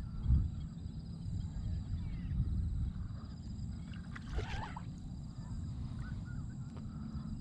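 Low, steady water-and-hull rumble around a kayak on a lake, with one short splash about four and a half seconds in.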